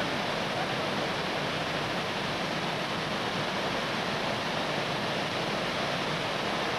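Steady rushing of whitewater from the Aigir rapid on the Malyi Inzer river, an even noise with no breaks.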